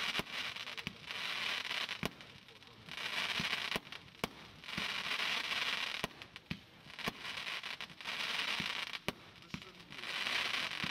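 A 25-shot 1.2-inch fireworks cake firing. Sharp bangs of the shots come in quick succession, and about every two seconds a hiss of burning stars lasts around a second.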